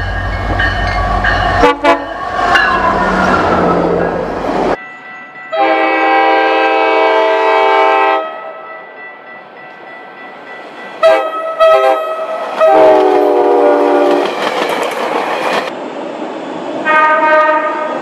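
Train horns sounding in a run of separate recordings. First comes a horn over the rumble and clatter of a moving train, then a long blast of about two and a half seconds, a few short toots, and two more blasts. Each sounds as a chord of several notes.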